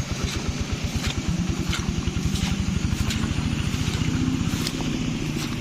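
Small engine running steadily at an even speed with a rapid, regular putter, shifting slightly in tone near the end.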